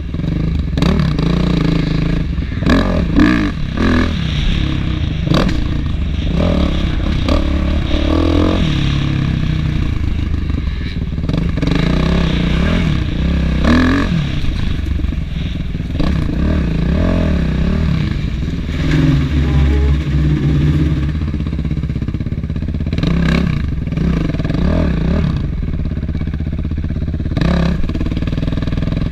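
Kawasaki KX450F motocross bike's single-cylinder four-stroke engine being ridden hard on a dirt track, revs rising and falling through throttle and gear changes, with occasional knocks. It settles to a lower, steadier note near the end as the bike slows. Heard from a helmet-mounted camera.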